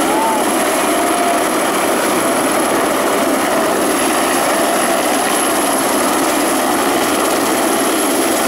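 Helicopter hovering with its rotor and engine running steadily, a constant loud noise with no change in pitch.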